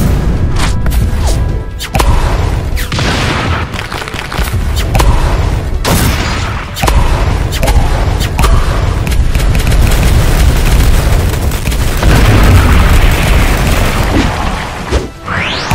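Animation fight sound effects: a rapid series of heavy booms and impacts over background music, with a rising whoosh near the end.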